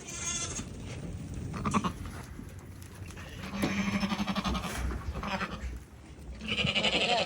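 Goats bleating, several separate calls, with a longer one about halfway through and a loud one near the end.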